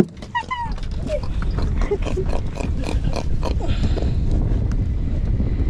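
Irregular knocking and clattering on a small fishing boat, over a steady low rumble, with a few short voice sounds about half a second in.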